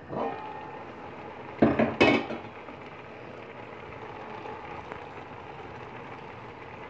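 Aluminium pot lid lifted off a cooking pot, clanking twice against the metal rim, followed by a steady hiss from the pot of mustard greens boiling on the stove.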